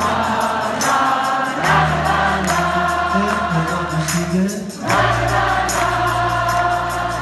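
Concert audience singing along in chorus with a live rock band playing a steady beat.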